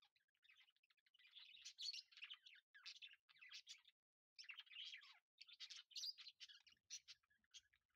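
Faint, rapid chirping of small birds in dense runs, with a brief pause about halfway through.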